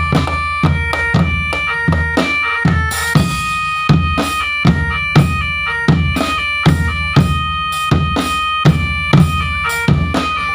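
Drum band playing a march-style tune: bass and snare drums beating a steady rhythm about two strokes a second under a sustained, reedy melody line that steps from note to note.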